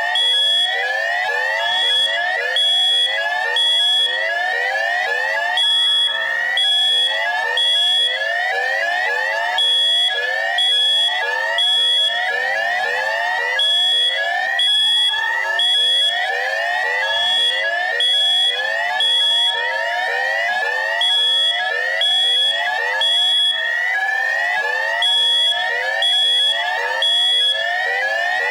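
Harsh electronic alarm sound: a rapid chain of rising whoops, several a second, layered with a piercing high beep that pulses in groups of three with short pauses between groups.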